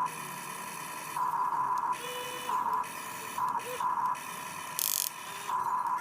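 Small electric drive of a radio-controlled excavator whining in short runs: one steady high whine that starts and stops several times as the controls are worked, with a brief hiss about five seconds in.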